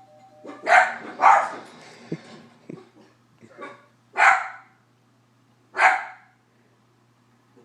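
House dogs barking at a doorbell chime heard on the TV. A short two-note tone sounds at the very start. Two loud barks follow close together about a second in, then a few softer yips, and two more loud barks a couple of seconds apart.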